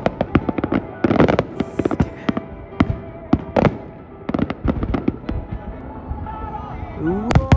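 Fireworks bursting and crackling in quick succession, many sharp bangs close together, with music playing underneath.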